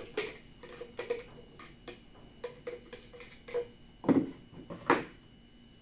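Plastic pipe fittings being handled and set down on a workbench: a run of light clicks and knocks, with two louder knocks about four seconds in and a second later.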